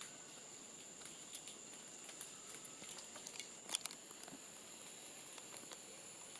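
Lesser oriental chevrotain moving over the forest floor: faint scattered light ticks and patters, with a short cluster of louder clicks a little past halfway. A steady high-pitched insect drone runs underneath.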